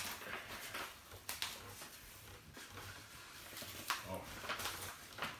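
Gift-wrapping paper rustling and crinkling in a few short bursts as a present is unwrapped.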